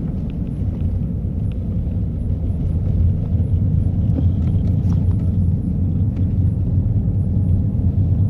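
Steady low rumble of a car being driven, engine and road noise heard from inside the cabin, growing slightly louder about three seconds in.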